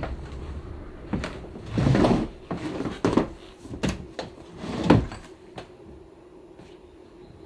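Handling of a wooden dining chair during reupholstery: about five dull knocks and thumps in the first five seconds, the loudest near the middle, then a quieter stretch.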